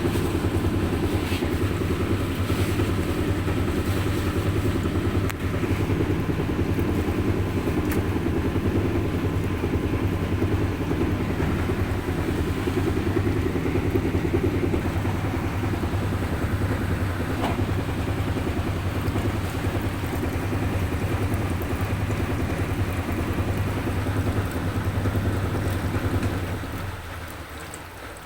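LG washing machine running with a steady low motor hum that dies away near the end.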